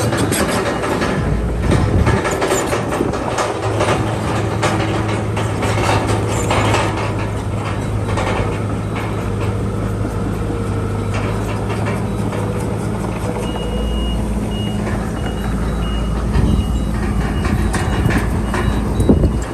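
Diesel crawler bulldozer engine running steadily, with its steel tracks clanking and rattling. About two-thirds of the way through, a reversing alarm starts, giving evenly spaced high beeps.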